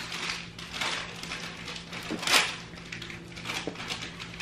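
A person drinking water from a cup: a run of soft gulps and breaths, the loudest about halfway through.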